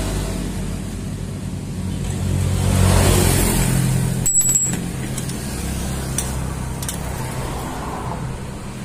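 A motor vehicle engine hums steadily and grows louder around three seconds in. A short high-pitched metallic ring comes a little after four seconds, followed by a few light clicks.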